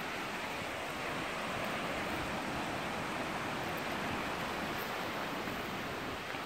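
Steady, even rushing noise of the outdoors, with no distinct events.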